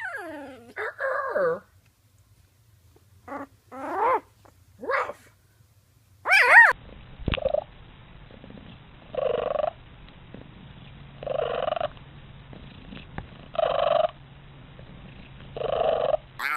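Animal sounds: a few short calls that slide in pitch, then, after a click, a rough breathy sound repeated about every two seconds, four times.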